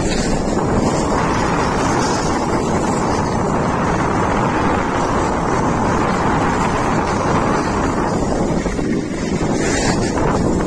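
Loud, steady wind noise buffeting the microphone of a camera moving fast down a snowy slope on a sled, easing briefly near the end.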